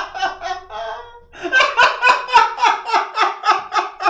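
A man laughing hard, breaking into a long run of rapid, even bursts of laughter, about four a second, after a brief lull about a second in.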